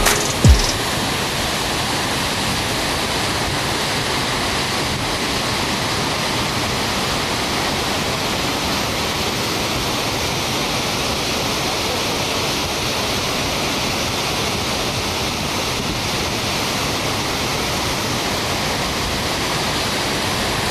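Steady, even rushing of a waterfall, with a low thump right at the start.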